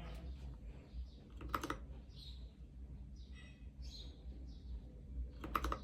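Typing on a Royal Kludge RK61 mechanical keyboard: scattered key clacks, with two louder flurries of keystrokes about a second and a half in and near the end.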